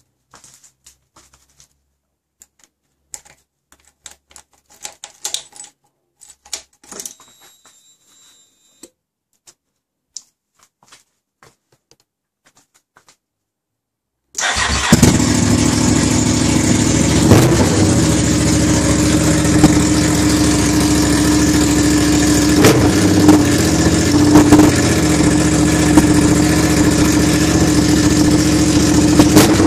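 Honda Varadero XL1000V's V-twin engine with its exhausts removed. After about fourteen seconds of faint clicks, it fires up suddenly and then runs loud and steady, with a few brief louder spikes.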